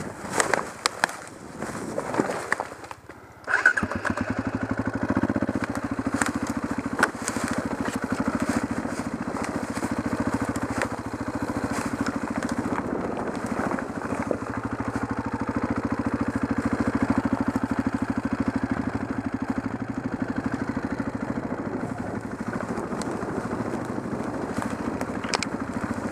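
Off-road motorcycle engine starting suddenly about three and a half seconds in, then running steadily with an even fast pulse. Before it, scattered crackles and knocks of leaves and twigs.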